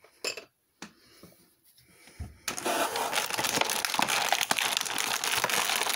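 A few faint handling clicks, then about two and a half seconds in, plastic toy packaging starts crinkling and crackling continuously as it is handled and opened.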